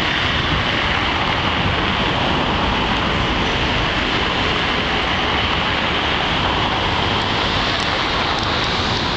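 Steady, even rushing noise of an outdoor city background, with no single distinct event standing out.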